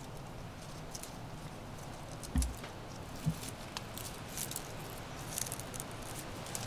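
Scattered light crackles and ticks over a faint steady outdoor hiss, with two dull low thumps about a second apart a little past two seconds in.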